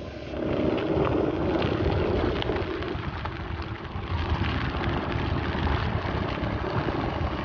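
A vehicle on the move: a steady rumble of engine and road noise that swells in the first second and then holds.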